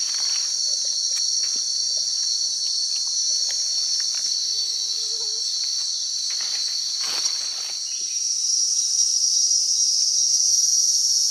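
A steady, high-pitched chorus of forest insects that swells slightly in the last few seconds, with scattered rustles and crackles of dry leaf litter.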